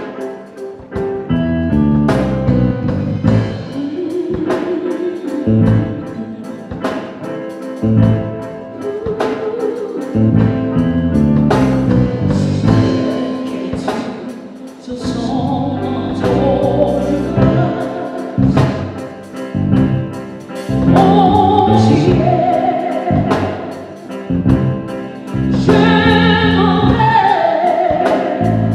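A woman singing into a handheld microphone over an instrumental accompaniment with drums. The accompaniment plays alone at first, and her voice comes in about halfway through, climbing higher near the end.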